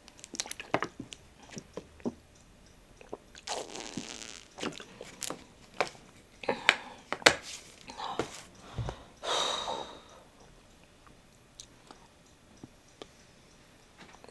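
Plastic water bottle crackling and crinkling in the hand as a person drinks from it, with many sharp clicks and sips. The sounds stop about ten seconds in.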